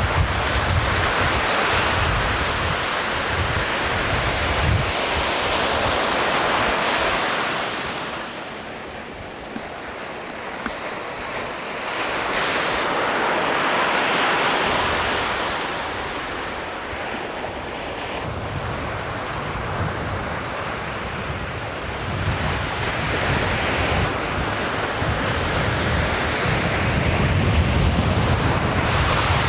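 Ocean surf breaking and washing up the beach, swelling and easing every several seconds, with wind buffeting the microphone at the start and again through the second half.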